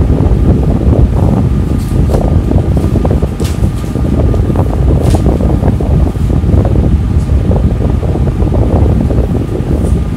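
Steady, loud low rumble of moving air on the microphone, like a running fan's airflow, with a faint steady hum and a few faint high ticks.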